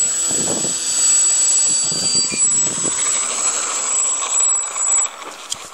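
Motor and propeller of an RC model airplane running on its takeoff roll: a steady high whine with propeller noise beneath it. The sound drops out briefly near the end.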